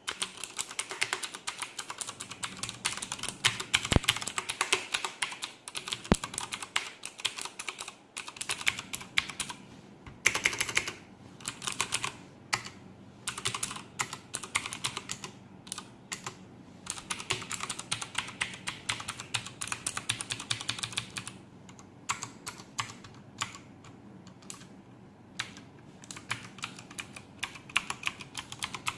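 Typing on a Logitech G610 mechanical keyboard with Cherry MX Blue clicky switches: rapid runs of sharp key clicks in bursts, with short pauses between them.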